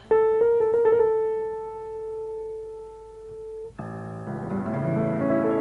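Piano: a loud opening with a few quick notes, then one note left ringing and fading for about three seconds. Near the end a new piano passage starts, with chords and a rising run of notes.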